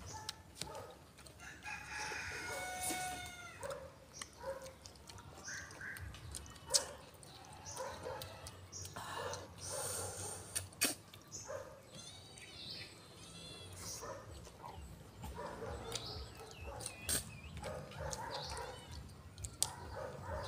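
A rooster crows about two seconds in, with more chicken calls and clucking later on. Short clicks and small noises of people eating with their hands sound over it.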